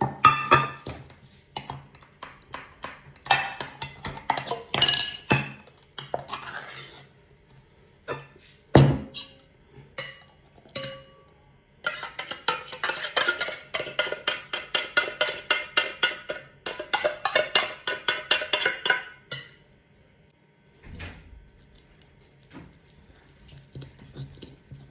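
Kitchen utensils and dishes clinking and clattering during food preparation. In the middle comes a run of quick, even taps, about four or five a second.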